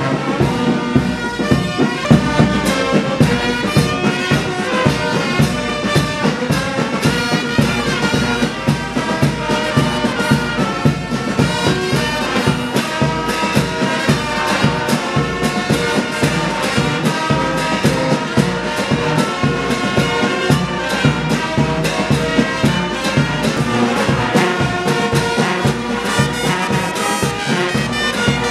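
Military brass band playing a march in quick time, trumpets and trombones over a steady drum beat.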